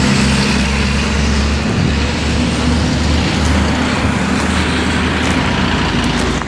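John Deere 4052R tractor's diesel engine running steadily, with a few light clicks near the end.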